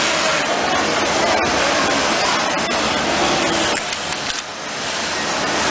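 Single-needle industrial lockstitch sewing machine running as fabric is stitched around a template, under a steady hiss of noise. The sound drops briefly about four seconds in, as the work is turned at a corner.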